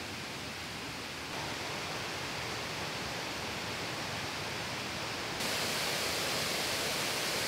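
Waterfall water rushing over the cascade: a steady, even rush that grows louder about a second in and again, brighter, about five and a half seconds in.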